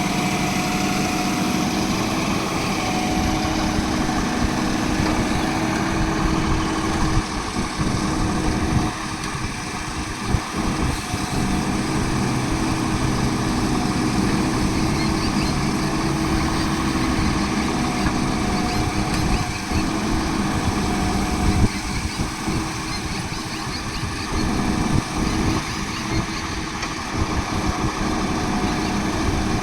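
Diesel engine of a Bull backhoe loader running steadily, with a few brief dips and changes in its note along the way.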